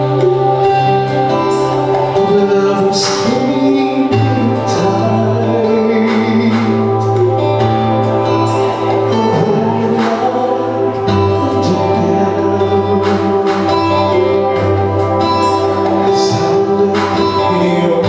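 A man singing into a handheld microphone over instrumental accompaniment, with long held bass notes that change every few seconds.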